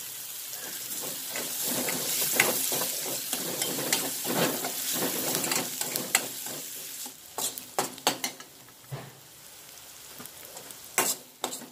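Sliced shallots sizzling in hot oil in a stainless steel kadai, stirred with a metal spoon that scrapes the pan. The sizzle is strongest in the first half and eases off, leaving separate clicks and scrapes of the spoon on the steel near the end. The shallots are being fried until brown.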